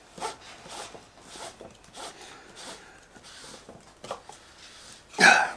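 Grey PVC threaded tee being screwed by hand into an orange plastic irrigation compression fitting, its PTFE-taped plastic threads rasping in a series of short twisting strokes.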